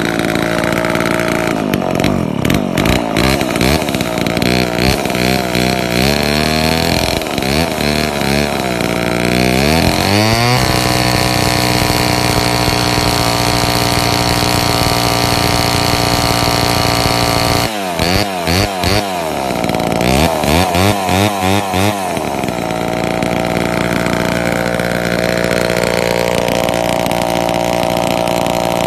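Vintage Homelite two-stroke chainsaw with a 28-inch bar being revved with no load: repeated throttle blips that rise and fall in pitch, then held wide open for about seven seconds, then more quick blips before it settles to a lower, steadier run near the end. It runs strong and clean, which the owner takes to mean it is in mint condition.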